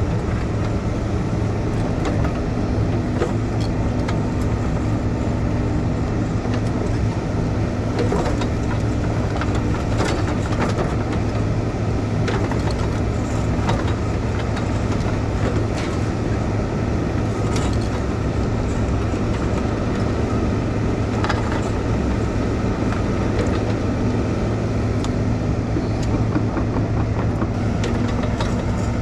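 Heavy-equipment diesel engine running steadily at a constant pitch, with scattered light clicks and knocks over it.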